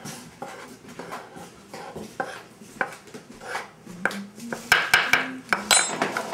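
Metal spoon scraping and tapping through a mound of flour on a wooden pastry board, hollowing out a well for pasta dough, in a run of short scrapes that get louder in the second half. Near the end the spoon is set down with a sharp, ringing clink.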